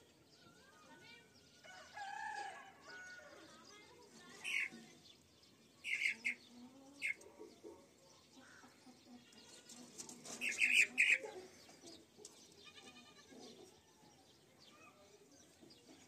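Young chickens chirping in short, high bursts, a few scattered through the first half and a louder cluster about ten to eleven seconds in.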